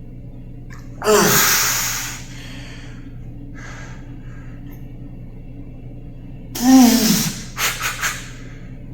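A man's hard, effortful exhales with a falling pitch, like a grunt under strain while lifting: one about a second in, another near the end followed by three quick short breaths.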